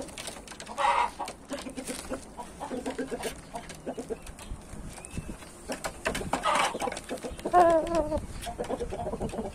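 Game chickens clucking, with a few louder short calls: one about a second in and two more in the last three seconds.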